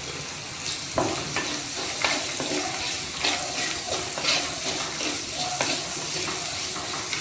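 Shallots, coconut pieces and dried chillies sizzling in coconut oil in a clay pot while a wooden spatula stirs and scrapes them. The spatula strokes come as repeated scrapes and taps over the steady sizzle, starting about a second in.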